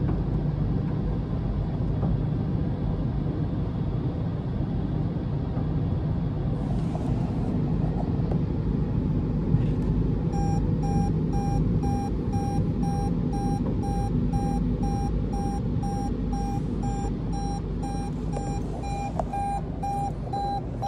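Automatic car wash brushes and water rumbling steadily over a car, heard from inside the cabin. About halfway through, a run of evenly spaced electronic beeps starts and keeps going.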